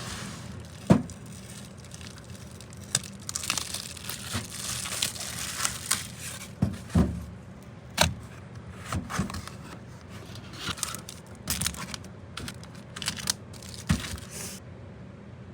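Packaging being opened by hand: wrapping crinkling and tearing, with scattered sharp taps and knocks, the loudest about a second in. The handling stops near the end.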